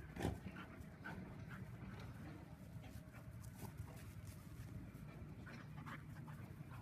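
Dogs panting and scuffling as they play-fight, with one brief louder sound just after the start.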